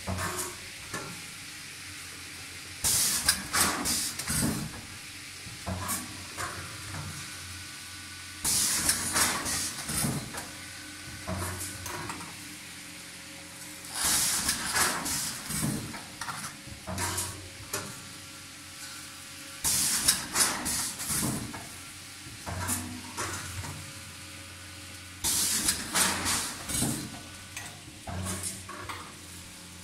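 Dolzan D150 vertical form-fill-seal packaging machine running through its bagging cycle. About every five and a half seconds there is a loud burst of air hiss with clattering, five times in all, over a steady machine hum.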